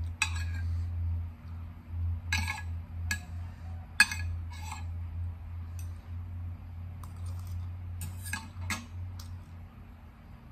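Metal spoon and fork clinking and scraping against a plate while noodles are scooped up, a scattering of separate clinks with the sharpest about four seconds in, over a steady low hum.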